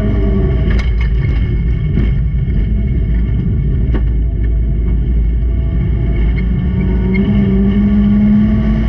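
Racing car engine running hard, its note climbing and getting louder about seven seconds in, with a few sharp knocks over the first four seconds.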